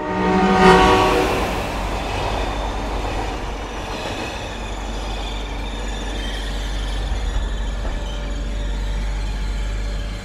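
A train horn sounds briefly at the start, then a train runs past with a steady low rushing noise.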